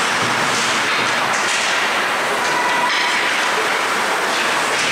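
Ice hockey rink ambience: a steady rushing noise, with a few faint sharp scrapes or clacks from skates and sticks on the ice.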